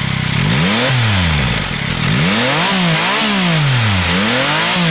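Yamaha Tracer 9GT's CP3 900cc three-cylinder engine free-revving on the stand: the throttle is blipped repeatedly, the engine note rising and falling with each blip.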